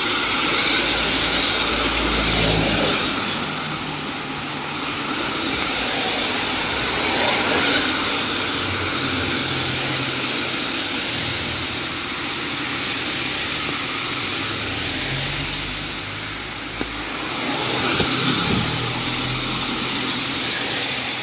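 Cars passing one after another on a rain-soaked road, their tyres hissing through the water; the noise swells as each car goes by, most strongly near the start, about a third of the way in and near the end.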